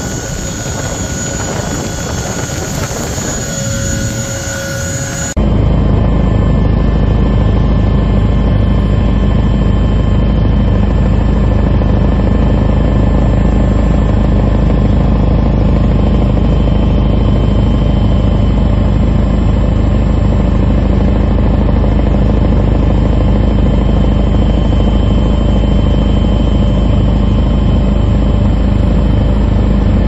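Firefighting helicopter in flight, heard from on board. For about five seconds there is rushing wind and rotor noise, then it changes abruptly to a louder, steady low engine-and-rotor drone that holds unchanged.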